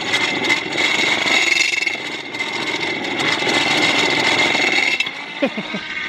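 Car alternator spun fast by a belt from a large pulley, running with a steady high whine over a whirring hum. It drops away about five seconds in.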